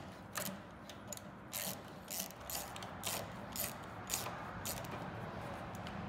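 Ratcheting screwdriver with a T30 bit clicking in short, uneven runs, about one or two clicks a second, as the lift-gate strut's upper mounting bolt is turned by hand. A faint steady hum lies underneath.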